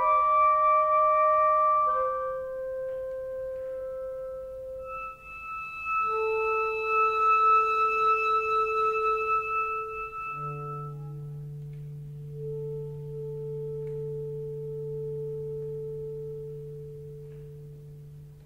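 Two clarinets playing a slow passage of long held notes. About ten seconds in, one clarinet takes a low note under the other's held higher note, and the two-note chord is sustained and dies away, ending the movement.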